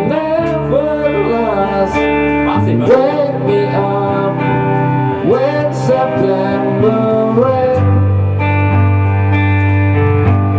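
Band music with guitar and a singing voice; about three quarters of the way through, the wavering vocal line stops, leaving held guitar chords over a steady low bass note.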